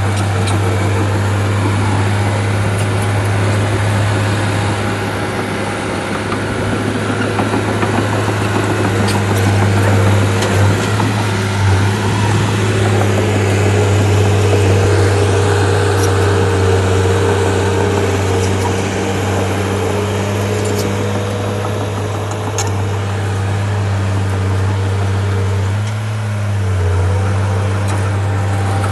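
Shantui bulldozer's diesel engine running steadily, its note dipping briefly and recovering near the end, with a few faint clicks over it.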